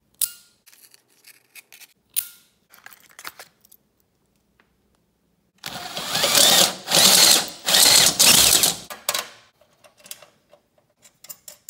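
Power drill with a step bit boring a hole through a lawn tractor's dash panel, running loudly in about three short bursts beginning about halfway through. Light clicks and handling noises come before and after.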